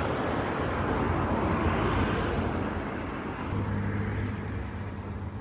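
Road traffic: a passing vehicle whose noise swells and then fades, followed about three and a half seconds in by a low, steady engine hum.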